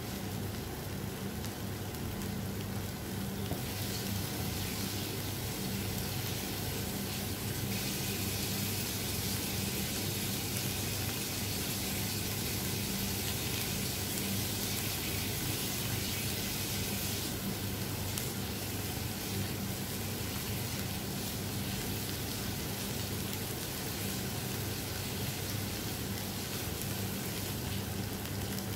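Eggplant chunks and sliced onion sizzling as they fry in a pan, a steady hiss that grows brighter and louder for about ten seconds in the middle.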